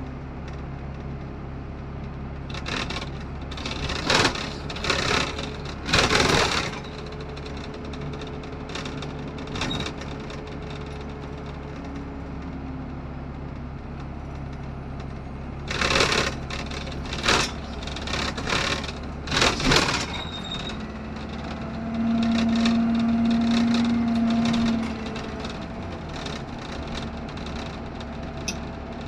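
Optare Solo SR single-deck bus heard from inside while under way: a steady low engine and road hum, with bursts of rattling and clattering from the body and fittings around four to seven seconds in and again around sixteen to twenty seconds. A louder steady humming tone stands out for about three seconds past the twenty-second mark.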